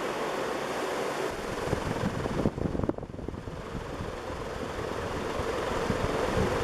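Ceiling fan running on high speed: a steady rush of moving air. From about a second in, its draft buffets the microphone in gusts. The fan's replacement blades sit on low-pitch brackets, and the owner reckons it is spinning at over 300 RPM.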